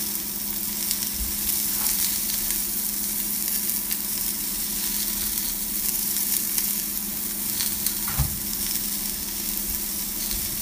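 Chicken burger patty frying in a thin film of oil in a small nonstick pan: a steady sizzle, with a low steady hum beneath it and a short knock about eight seconds in.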